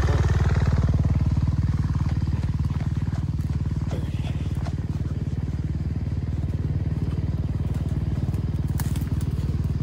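Motorcycle engine running at a steady pace, its pitch dropping slightly over the first second or so. A brief click near the end.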